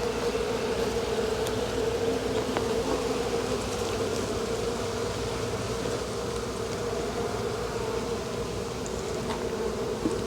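Honeybee swarm buzzing in a steady, even drone, with a few light clicks.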